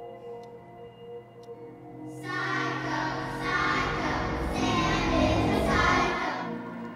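Horror film score: quiet sustained tones, then about two seconds in a choir-like swell of voices that builds, is loudest near the end, and then fades.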